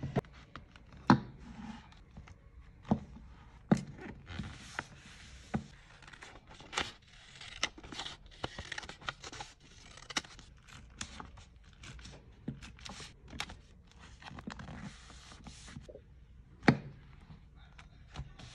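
Paper rustling, sliding and crinkling as loose sheets of ephemera are handled and laid into a paper journal, broken by irregular sharp taps and knocks on the desk, the two loudest about a second in and near the end.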